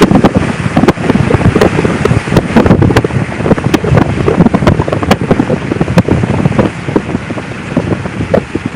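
Car interior at road speed in a thunderstorm: loud road and wind noise with a dense, irregular patter of rain and spray hitting the car.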